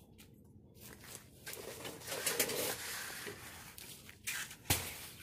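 Hand trowel scraping and smoothing freshly poured wet concrete, with a couple of sharp knocks near the end.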